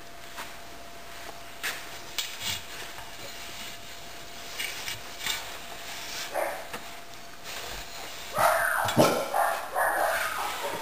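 A dog barking repeatedly from about eight seconds in, loud and insistent. Before that there are only light scattered knocks and rubbing, as of handling and wiping parts.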